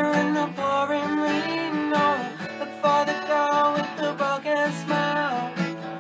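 Acoustic guitar strummed as accompaniment to a young man singing long held notes.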